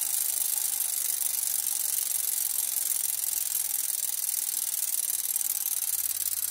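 Rear freewheel of a vintage road bike spinning with the wheel while the cogs stay still, its ratchet pawls buzzing in a steady, high-pitched whir.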